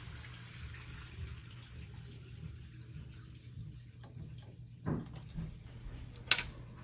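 Water running and dripping over a steady low hum, with a knock about five seconds in and a sharper, louder knock near the end.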